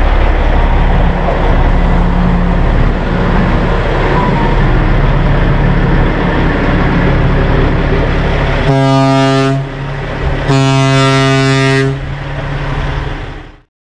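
Peterbilt 389 glider semi tractor pulling away with its diesel engine running loud, then two horn blasts about nine and ten and a half seconds in, the second one longer. The sound cuts off abruptly near the end.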